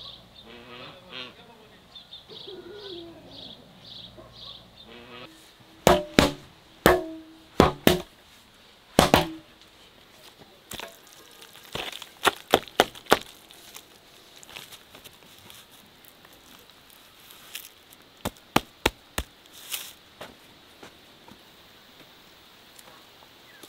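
Birds calling, geese among them, with a quick repeated high chirp; then, about six seconds in, a metal hoe slaps wet mud onto stacked blocks and knocks against them. The knocks are sharp, come in a loud cluster early on, and lighter ones follow in twos and threes.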